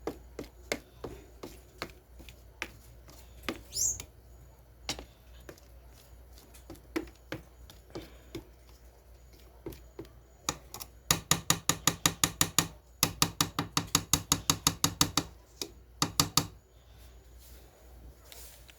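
A utensil knocking against a bowl as carrot cake batter is mixed by hand: scattered clicks at first, then a fast, even run of strokes, about six a second, for several seconds in the second half.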